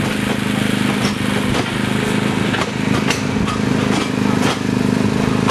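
Diesel locomotive engine running at a steady pitch as the train rolls along, with sharp irregular clicks from the wheels on the rails.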